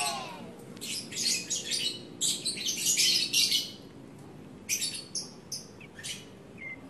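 Black-throated laughingthrush (cak jenggot) giving bursts of harsh, scratchy chattering calls in two runs, then a few short high chirps near the end.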